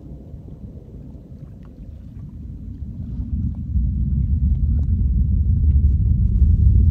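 Low rumble of a Falcon 9 rocket's nine Merlin engines, heard from miles away, swelling steadily from about three seconds in into a deep, heavy rumble.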